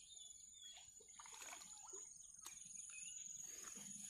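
Faint outdoor quiet with an insect trilling steadily at a high pitch, a few soft scattered rustles, and a short bird chirp about three seconds in.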